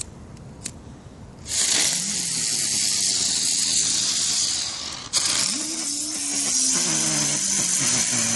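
Lesli top-spinner ground fireworks fizzing as they spin on pavement: a loud hiss starts about a second and a half in, a sharp crack comes about five seconds in, then hissing with a low wavering whine until near the end.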